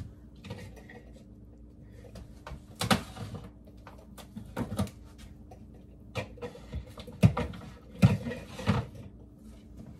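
Someone rummaging in a kitchen: a handful of separate knocks and clatters of things being moved and handled, the sharpest past the middle, over a faint steady hum.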